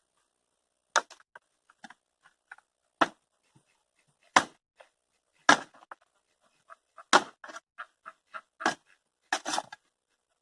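A hoe striking wood and debris: about seven hard, sharp blows one to two seconds apart, with small clicks and crackles of wood between them.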